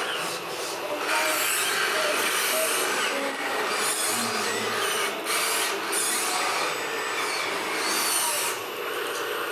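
Small electric motors and gearboxes of radio-controlled scale trucks and construction machines whirring in spells, with faint rising and falling whines, busiest from about a second in until near the end.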